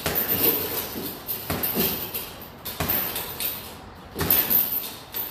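Boxing gloves striking a hanging heavy bag with repeated jabs, each landing as a sharp thud, several times about a second or so apart.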